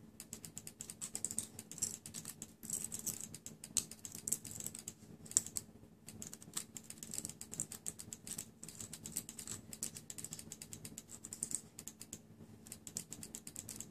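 Rapid, irregular light clicking and ticking, like typing on a keyboard, over a faint low hum.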